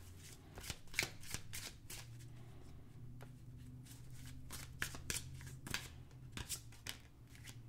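A deck of oracle cards shuffled by hand, the cards slapping and sliding against each other in an irregular run of soft clicks.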